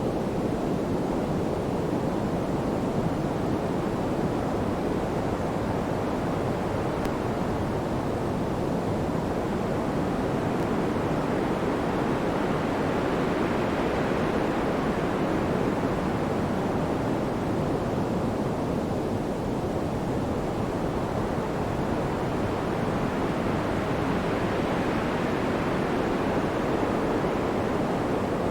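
Steady pink noise: an even, soft rushing hiss weighted toward the low and middle range, gently swelling and easing back in slow waves.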